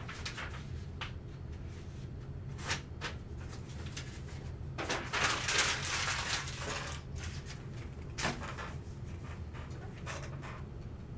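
Tabletop handling noises: a few light clicks and knocks, with a longer rustle about five seconds in.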